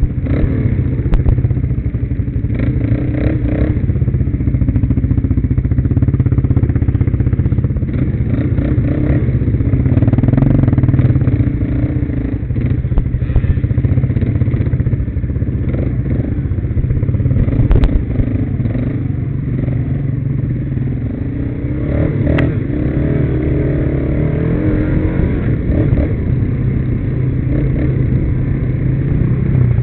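Quad bike engine running at varying throttle on a rough dirt trail, with scattered knocks and clatter from the bumps.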